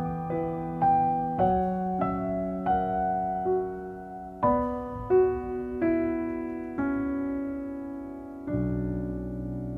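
Slow background piano music: single struck notes in a gentle melody over held lower notes, with a new low chord near the end.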